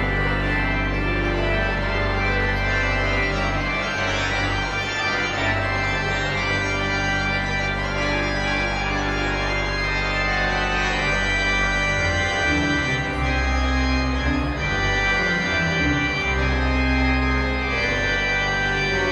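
Console organ playing held chords over sustained low bass notes. The bass line starts moving between notes about two-thirds of the way through.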